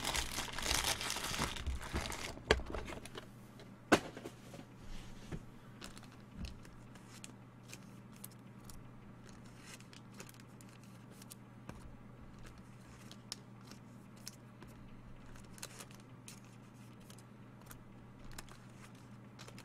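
Crinkling and rustling as trading cards and their packaging are handled for the first two and a half seconds, with a sharp knock about four seconds in. After that only scattered faint clicks over a steady low hum.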